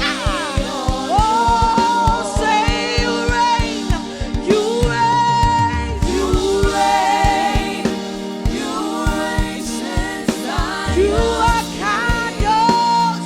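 Live gospel worship music: singers carrying a melody over a band, with a steady drum beat and bass.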